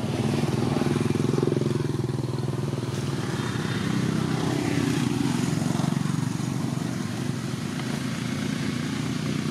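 A motor vehicle engine running steadily, louder in the first couple of seconds and again about four to six seconds in.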